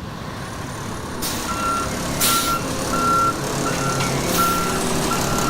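Concrete mixer truck backing up: its diesel engine runs under a reversing alarm that starts beeping about a second and a half in, repeating steadily. Three short hisses of air cut through.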